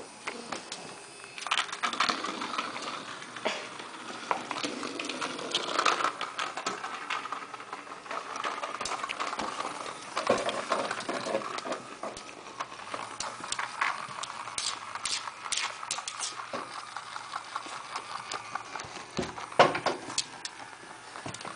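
Small dog's paws pattering and scrabbling on carpet and floor, with irregular clicks and knocks, as it chases and paws at a small toy mouse; one louder knock near the end.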